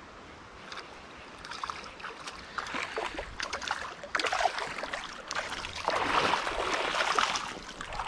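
Shallow creek water splashing and sloshing as a hooked smallmouth bass is fought in, growing louder in the second half.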